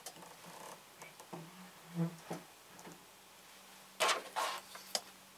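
Faint clicks and rustling from the salt lamp's cord dimmer switch being handled and turned up, with a soft knock about two seconds in and a cluster of sharp clicks near the end.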